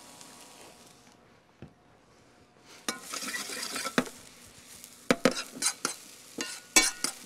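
Chopped shallots, garlic and onion frying in hot olive oil in a stainless steel frying pan and being stirred: a sizzle starts about three seconds in, then a utensil clacks against the pan several times.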